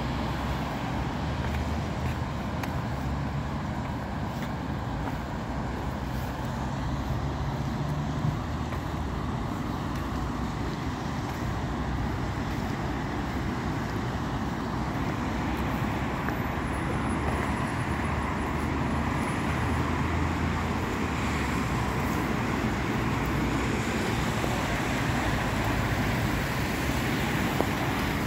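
Road traffic on a wet street: car, van and lorry engines running, with tyres hissing through surface water. The hiss grows louder in the second half as vehicles pass close by.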